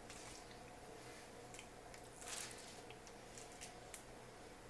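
Faint handling of a replacement laptop LCD panel: a few light ticks and a brief rustling swish about two seconds in, over a steady low hum.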